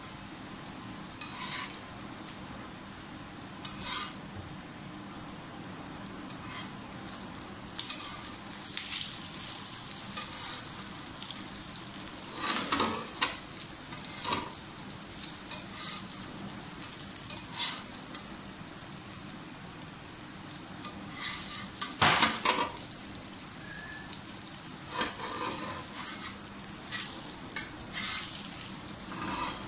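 Moong dal cutlets sizzling as they shallow-fry in a little oil on a flat griddle (tawa), a steady frying hiss. Brief clicks and scrapes of metal tongs on the pan come every few seconds as the cutlets are lifted off, the loudest about two-thirds of the way through.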